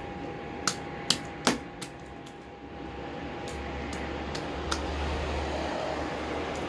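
Slime being kneaded and mixed by hand, with a few sharp clicks and pops in the first second and a half and fainter ones later, over a steady background hum.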